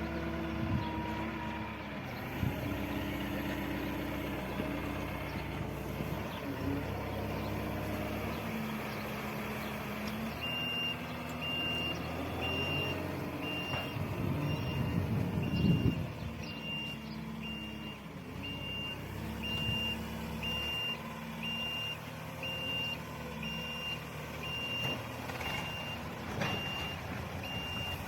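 A compact loader's engine running, with its reversing alarm beeping about one and a half times a second from about ten seconds in. Around the middle there is a louder rush of noise as the machine works, and a single sharp knock comes near the end.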